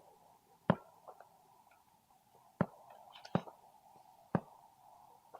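Sharp metallic clicks from handling an AR-15's magazine and action while clearing a failure to feed: four distinct clacks spread unevenly with a few fainter ticks between. A faint steady hum sits underneath.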